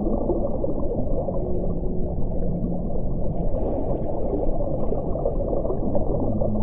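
Deep-ocean ambience: a steady low rush of water with long, drawn-out low whale calls.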